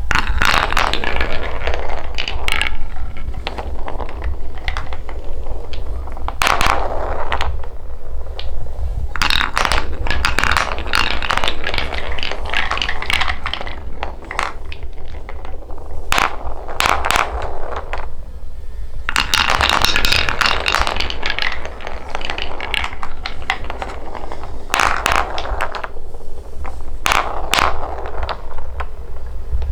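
Balls rolling and clacking along a wooden marble run, rattling in spells of a few seconds with short lulls between, over a steady low hum.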